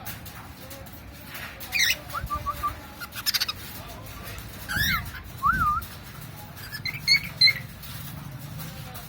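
Cockatiel calling in short bursts: a few chirps, a quick rattling chatter around three seconds in, swooping up-and-down whistles near the middle, and a couple of sharp chirps near the end.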